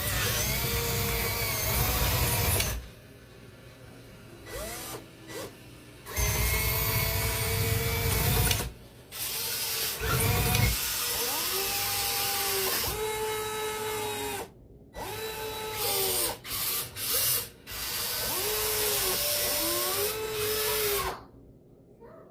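Small electric motors of radio-controlled construction models whining in a series of short runs that start and stop. The pitch rises as each run spins up and falls as it slows, with a low rumble under the first few runs.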